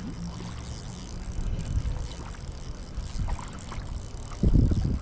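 Wind buffeting the microphone with a low rumble over a steady river-water hiss, with a stronger gust near the end.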